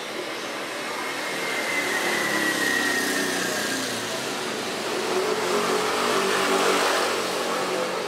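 A motor vehicle engine swells and fades twice, like traffic passing, with a faint whine that falls slightly in pitch during the first swell.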